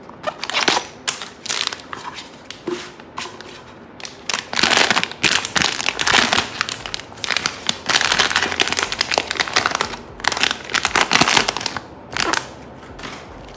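Packaging crinkling and crumpling in the hands as a blind-box figure is unwrapped, in irregular bursts that are busiest through the middle.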